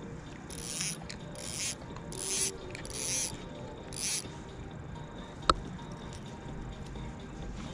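Daiwa Exceler LT 2000 spinning reel's mechanism whirring in five short bursts about a second apart as line is brought in, followed by a single sharp click.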